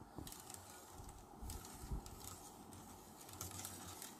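Faint stirring: a metal spoon working sugar through thick cow colostrum in a stainless-steel bowl, with light scrapes and small knocks of the spoon against the bowl.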